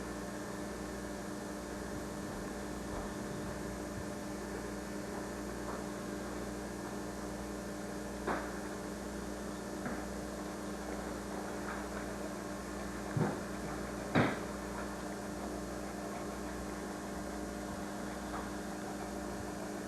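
Steady electrical mains hum over a low hiss, with a few short faint knocks scattered through, the clearest two close together near the end.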